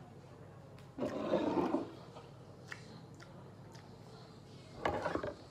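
Mouth noises while eating juicy pomelo: two short, loud rough bursts, about a second in and again near the end, with a few faint clicks between.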